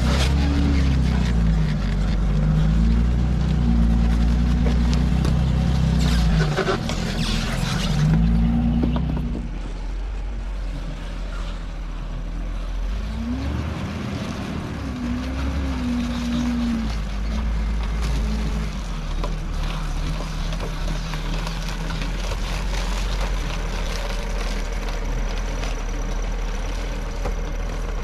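Hägglunds Bv206 tracked all-terrain vehicle driving over rough ground, its engine running with revs that rise and fall. It is loud and close for about the first nine seconds, then quieter, with another rise and fall in engine pitch around the middle.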